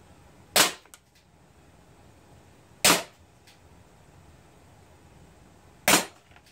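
Crosman SR 357 CO2 air revolver firing pellets: three sharp shots, about two and a half to three seconds apart, each followed by a faint tick.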